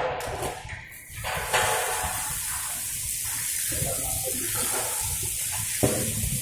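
Water spraying steadily from a hose, a hiss that sets in about a second and a half in. A single knock near the end.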